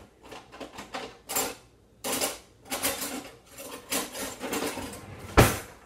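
Kitchen prep sounds: a string of short scraping and clattering strokes, roughly one every half second to a second, with one sharp knock near the end.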